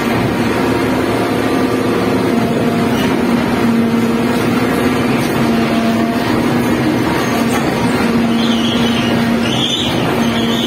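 Epiroc Häggloader mucking loader running under load while its arm digs into blasted rock: a loud, steady machine drone with a constant hum.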